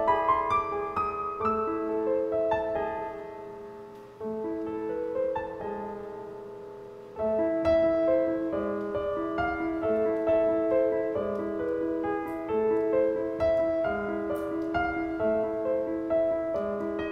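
Slow piano music: held notes and chords in phrases that fade away and start again, with fresh phrases about four and seven seconds in.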